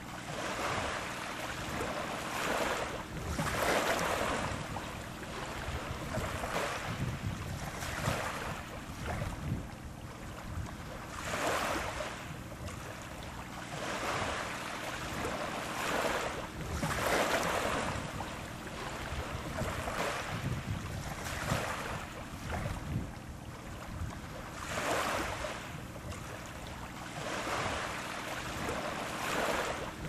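Waves washing in, swelling and falling away every few seconds, over a steady low hum.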